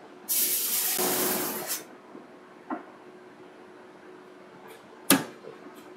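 A hiss lasting about a second and a half, then a sharp click about five seconds in.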